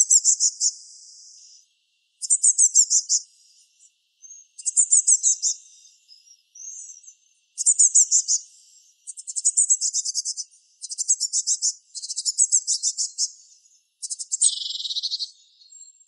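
Juvenile Eurasian blue tit calling: bursts of rapid, very high notes, each lasting about a second and coming every second or two, with the last burst near the end lower-pitched.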